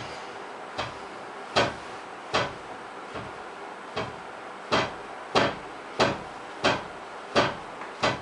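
A series of about eleven knocks or thuds, roughly one every two-thirds of a second, some much louder than others.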